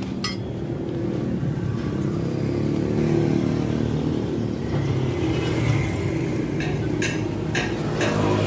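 A motor vehicle engine running steadily, a low rumble that swells a little in the first few seconds. Near the end come a few short metal clinks of a wrench on the leaf-spring mounting bolts.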